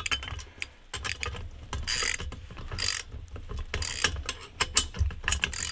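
Socket ratchet wrench clicking in repeated strokes about a second apart, tightening lock nuts onto the bolts that join a steel axle support and yoke.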